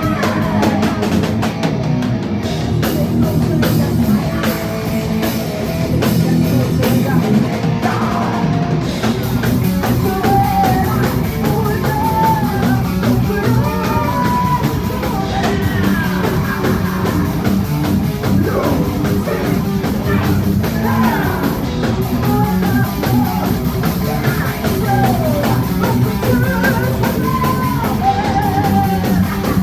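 Heavy metal band playing live: distorted electric guitars, electric bass and a pounding drum kit. A woman's lead vocal sings over it from about ten seconds in.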